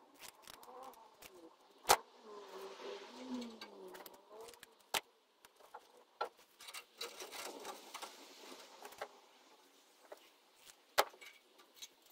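Workbench handling noises: a few sharp clicks and taps, the two loudest about two seconds in and near the end, with light crinkling and rustling between, from small materials being picked up and worked by hand.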